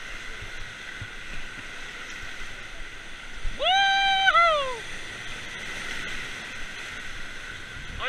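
Whitewater rapids rushing steadily around an inflatable raft. About halfway through, a rafter gives one long high yell that holds its pitch, then drops away.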